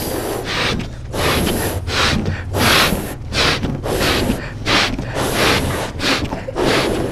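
Two people blowing up rubber balloons by mouth: repeated sharp gasping inhales and forceful puffs of breath into the balloons, roughly one a second.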